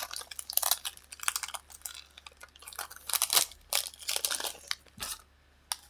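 Foil wrapper of a Pokémon card booster pack crinkling and tearing as it is opened by hand, in a run of irregular crackles that stops about five seconds in.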